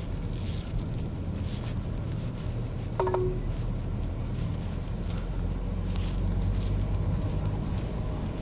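Car driving slowly along a narrow country lane: a steady low rumble of engine and road noise, with a short falling squeak about three seconds in.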